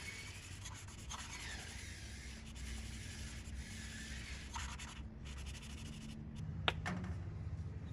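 A valve being lapped into its seat in a Ford Model A flathead engine block: a suction-cup lapping tool is twisted back and forth, rubbing the valve face on the seat with grinding compound, which makes a gritty scraping rub. A single sharp click comes near the end.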